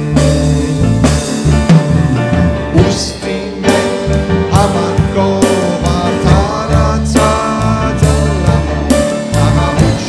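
Live band music: grand piano and electric bass under a lead melody line that bends and wavers in pitch.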